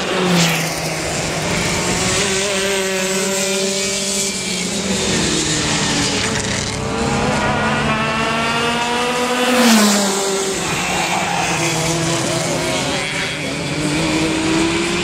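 Racing kart engines revving up and down as the karts lap the track, several at once. Two karts pass close by, about half a second in and again near ten seconds in, their pitch dropping as each goes past.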